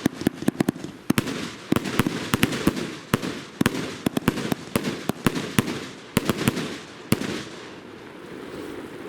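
Firework cake firing a rapid, irregular run of loud bangs, with crackling and hiss between the shots. The shots stop about seven seconds in and the crackle fades out.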